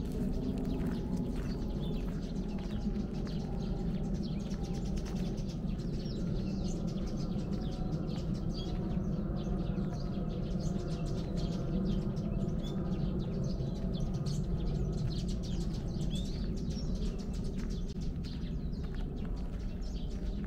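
Small birds chirping in the park trees, with the steady crunch of footsteps on a dirt path as someone walks along it.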